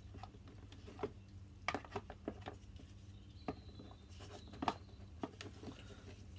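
Light plastic clicks and knocks as a Parkside 12 V lithium-ion battery pack is handled and seated in the groove of its charger, a few separate taps spread through, over a low steady hum.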